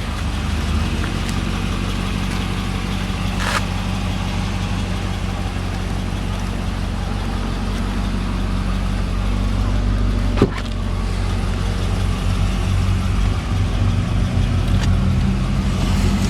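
Supercharged 6.2-litre V8 of a 2011 Cadillac CTS-V coupe idling steadily, with a short knock about three and a half seconds in and another about ten seconds in.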